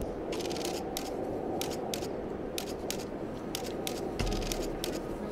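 Footsteps crunching in fresh powder snow, about two steps a second, over a steady rushing noise.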